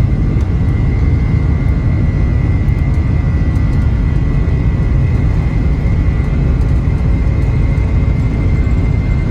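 Boeing 747-400's Pratt & Whitney PW4056 turbofan engines running steadily: a loud, even rumble with a thin, steady high whine over it.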